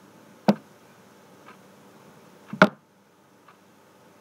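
Fidget spinner being flipped and caught or landing: two sharp clacks about two seconds apart, the second a quick double, with a few faint ticks between.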